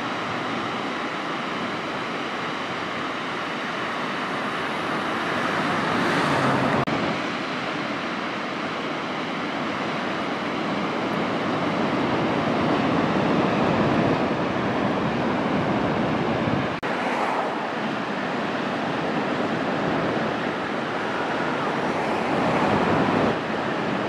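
Ocean surf breaking on a beach: a steady rushing wash of noise that swells louder as waves break and eases between them.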